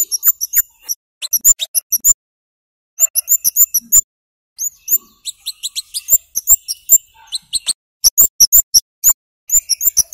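Scarlet-headed flowerpecker giving sharp, high 'cit' calls: clusters of quick chirps, several a second, broken by short pauses.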